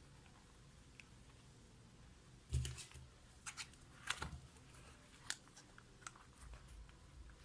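Faint handling of a small leather pocket planner: a soft thump about two and a half seconds in, then several light, separate clicks and taps over the next few seconds.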